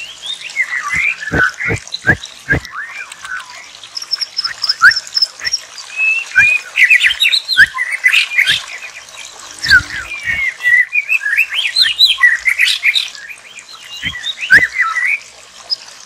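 White-rumped shama nestlings begging with a busy stream of short, high squeaky chirps, rising in bursts as they gape for food. A few low thumps near the start.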